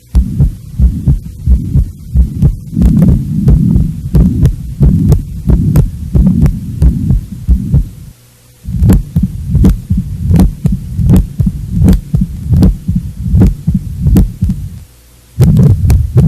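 Recorded heart sounds from cardiac auscultation: a steady beating rhythm with a murmur running between the beats, the sign of heart valve lesions. The sound stops for a moment twice, about eight seconds in and again near the end, as one recorded example gives way to the next.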